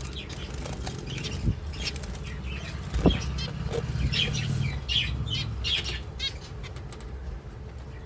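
Zebra finches chirping in quick short calls and fluttering their wings, over a steady low rumble of handling noise. A sharp knock about three seconds in is the loudest sound, with a smaller one just before it.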